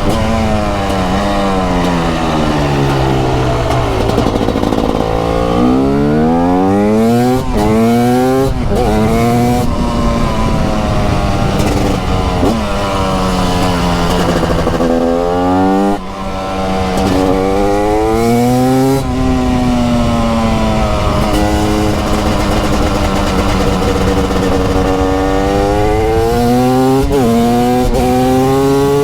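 TM Racing SMR 300 single-cylinder two-stroke supermoto engine under riding load, its revs falling away and climbing again several times as the throttle is closed and reopened through the gears, with brief breaks at gear changes.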